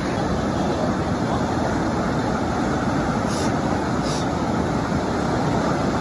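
Mountain stream rushing over boulders in a small cascade into a pool: a steady, loud rush of water.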